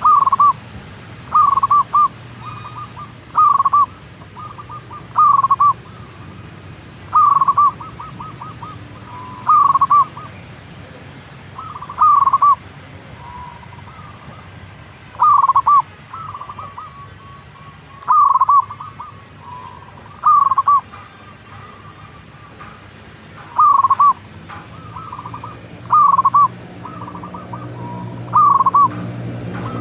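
Zebra dove (perkutut) singing: short stuttering cooing phrases of quick staccato notes, repeated about every two seconds.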